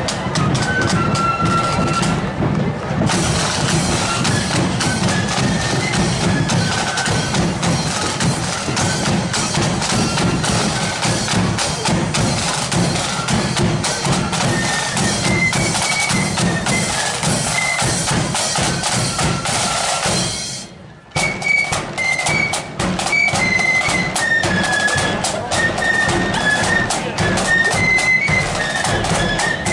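Marching flute band playing: flutes carry a high melody over snare drums and bass drum beating steadily. The music cuts out abruptly for a moment about two-thirds of the way through, then comes back.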